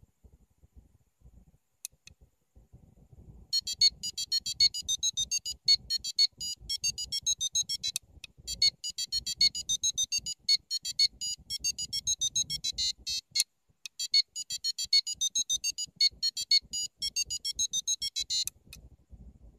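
The buzzer on an ACEduino microcontroller trainer board plays a four-tone melody of quick, high-pitched electronic beeps, several notes a second. It starts about three and a half seconds in, runs in three phrases with short breaks between them, and stops a second or so before the end.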